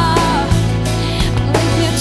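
Background music with singing, guitar and a steady drum beat.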